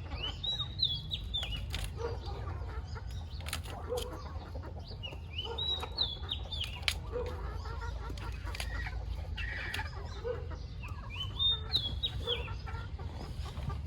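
Domestic chickens clucking, with a high call that rises and then falls in steps three times, about five seconds apart, and scattered sharp clicks.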